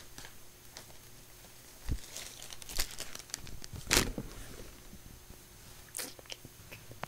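A sheet of paper being handled, rustling and crinkling in a few sharp bursts; the loudest crackle comes about four seconds in, with another near six seconds.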